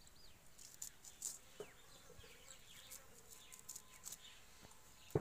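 Quiet outdoor ambience: a few faint bird chirps, with short crisp clicks and rustles of fresh herb leaves being cut against an upright blade.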